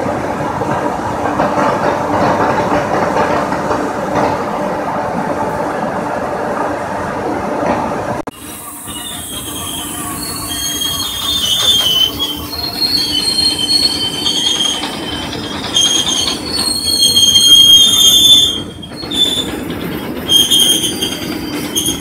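Railway oil tank wagons rolling along the track: a steady rumble of wheels on rail at first. About eight seconds in, the sound changes abruptly to high-pitched wheel squeal in several held tones, which come and go over the rolling noise.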